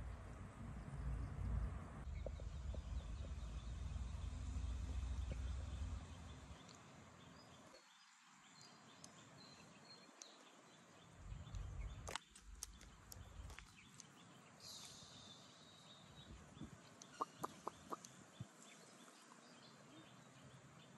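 Quiet outdoor ambience with a low rumble for the first six seconds. After that it is quieter, with a single sharp click about halfway through and a few faint short bird calls near the end.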